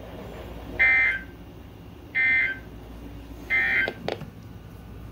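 NOAA Weather Radio EAS end-of-message tones: three short bursts of SAME digital data squawk, evenly spaced about a second and a half apart, signalling the end of the alert message.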